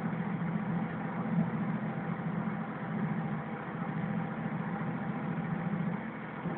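Kashima Rinkai Railway 6000-series diesel railcar running steadily, its engine drone and rolling noise coming in through an open window.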